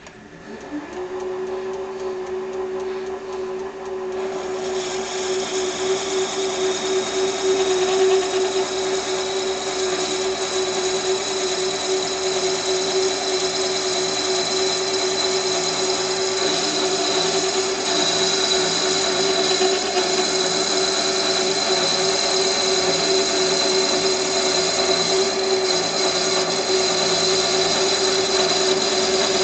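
Small metal lathe starting up, its motor coming up to speed within the first second, then running steadily. From about four seconds in, a steady high-pitched whine and cutting noise join it as the tool deburrs and parts off the turned piece.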